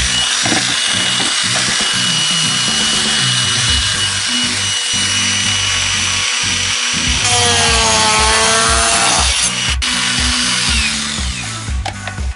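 Corded rotary tool with a cutting disc running at high speed with a steady high whine, cutting through Kydex sheet. It spins down near the end.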